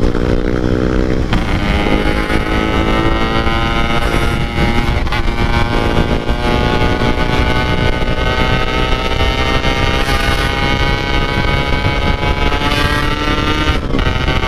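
Two-stroke motorcycle engine and exhaust, a Yamaha RX-King with a 'packing power' exhaust, pulling under throttle on the road. The note breaks briefly about a second in, climbs slowly through a long pull, and breaks again near the end, with wind rumble on the microphone.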